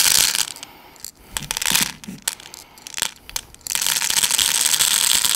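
Plastic airsoft BBs pouring from a container through the small filling hole into a high-capacity magazine: a dense rattling hiss that thins to scattered clicks about half a second in, then runs steadily again from about four seconds in.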